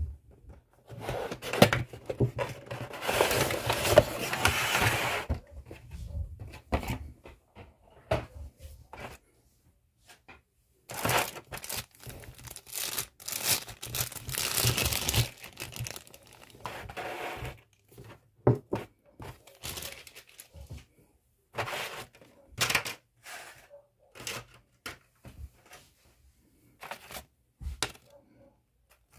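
Clear plastic bag crinkling and tearing in two long rustling stretches as a model airliner is unwrapped, with scattered light clicks and knocks of handling the packaging in between.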